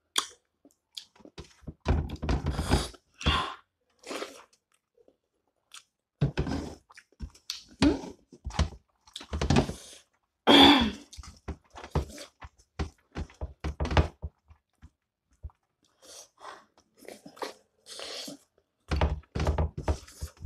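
Close-miked eating by hand: chewing and mouth smacks, mixed with fingers squishing rice and scraping on a stainless steel tray, in irregular clusters of short sounds with several dull thumps.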